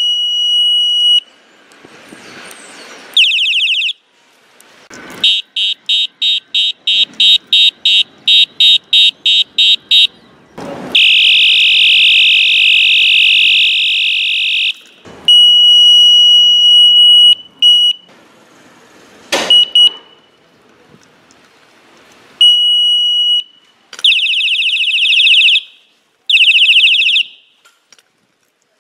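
Electronic bicycle horn sounded in repeated blasts while cycling through its sounds: a steady high-pitched beep, a run of rapid beeps about three a second, and warbling siren-like tones, each burst separated by short pauses.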